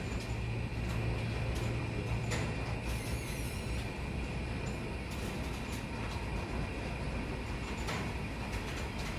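Steady low mechanical hum with a thin high steady tone above it and occasional light clicks.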